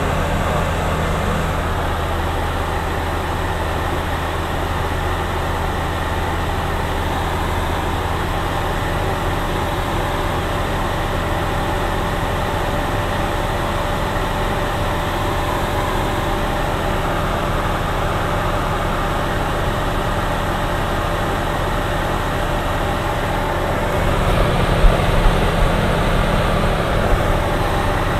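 Steady drone of a light single-engine propeller aircraft's engine and slipstream, heard inside the cockpit. A few brief knocks come near the end.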